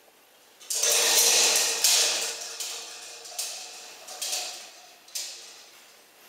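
Long thin steel band flexing, twisting and sliding across a tiled floor, with a metallic rustling wobble. It starts suddenly about a second in, then comes again in a string of shorter swells a little under a second apart, each dying away.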